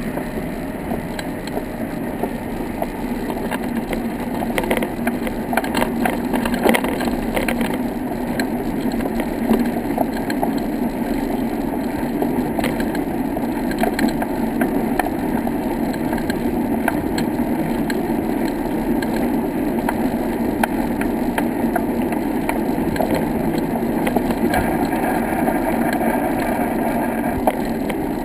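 Steady rolling noise of riding along a brick-paved path, with scattered sharp clicks and rattles, busiest a few seconds in.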